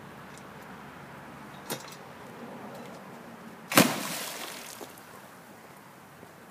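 A metal-legged student chair thrown into a swimming pool: a short knock about a second and a half in, then a loud splash nearly four seconds in as it hits the water, the splashing dying away over about a second.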